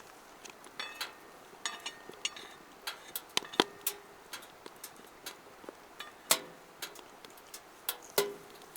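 Firewood burning in a fire pit, crackling with irregular sharp pops and snaps, a few of them louder.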